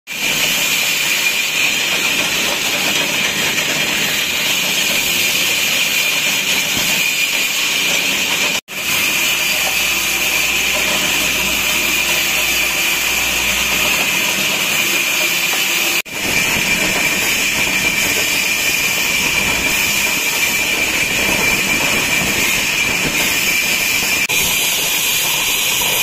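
Sawmill vertical band saw running and ripping a wooden plank into thin boards: a steady whine with a hissing rasp. It breaks off abruptly twice for a moment.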